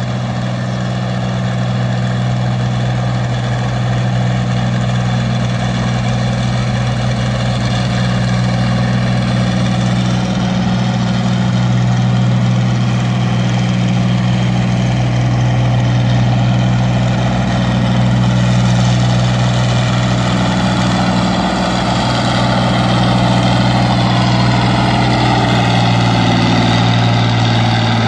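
Heavy farm tractor engine idling steadily with a low, even pitch, growing slightly louder toward the end.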